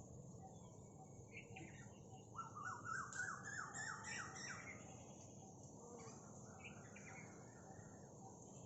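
Birds calling, with a quick run of about nine repeated, evenly spaced notes a couple of seconds in, and scattered shorter chirps around it.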